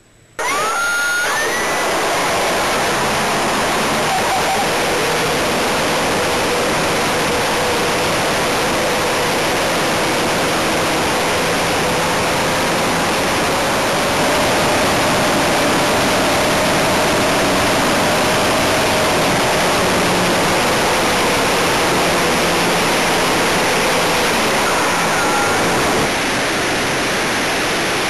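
Onboard-camera audio from an RC model aeroplane in flight: loud rushing wind and propeller noise over the motor's steady hum. It starts suddenly with a short rising whine, and the motor's pitch rises a little partway through, then falls again.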